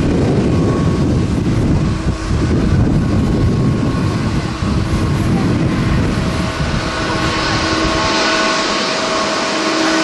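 Rolls-Royce Trent XWB jet engines of a Delta Airbus A350-900 rolling on the runway: a steady roar with several whining tones, through a heavy gusty rumble of strong wind on the microphone. Near the end the low rumble eases and a hissing part of the roar grows.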